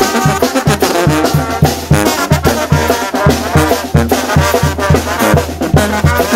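Upbeat Latin music with brass and a steady, even beat.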